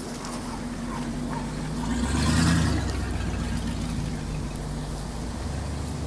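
A motor vehicle passing close by on a wet road: its engine and the hiss of tyres through water build to a peak about two and a half seconds in, then fade to a steady engine hum.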